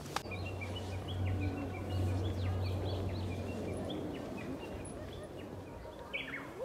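Many short bird chirps scattered throughout, several small birds calling over a steady low hum that fades about halfway through.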